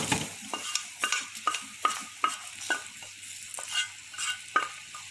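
Wooden spatula scraping and knocking fried garlic out of a wok into a pot of boiling soup: repeated sharp scrapes, about two a second, over a steady hiss from the pot.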